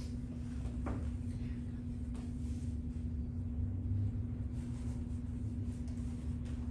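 Room tone: a steady low hum over a low rumble, with a faint click about a second in.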